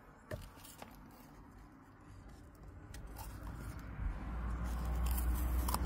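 Dry coconut being broken apart by hand: two small cracks in the first second, then a growing crackle and scraping of shell and flesh, with a low rumble in the last two seconds.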